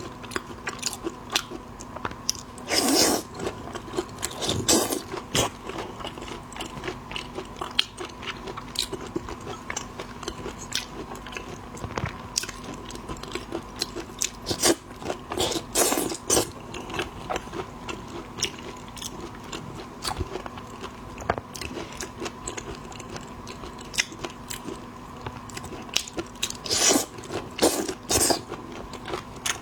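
Close-miked eating of shellfish: biting, crunching and chewing in many short crackly clicks, with a few louder, longer bursts of crunching.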